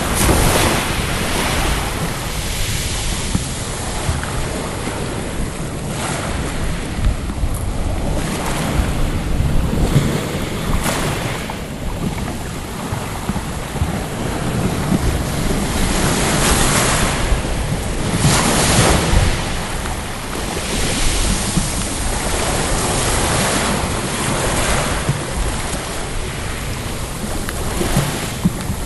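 Sea waves breaking and washing up a shingle beach, swelling every few seconds, with wind rumbling on the microphone.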